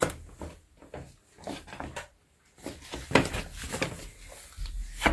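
Scattered light knocks and clatter of hands and a screwdriver handling the metal sewing-machine stand, with louder taps about three seconds in and at the very end.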